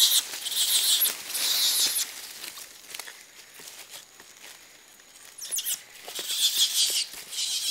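High-pitched animal squeals in short hissy bursts: three in the first two seconds, then a quieter stretch, then a run of them near the end, over faint rustling in the branches.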